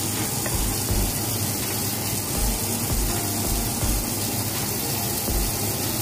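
Water poured from a drinking glass, splashing into a glass baking dish of raw chicken and vegetables. It runs over a steady background hiss.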